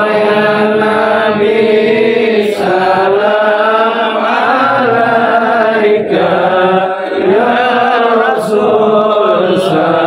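Voices chanting a melodic Arabic shalawat in praise of the Prophet Muhammad: a continuous sung recitation whose melody rises and falls without pausing.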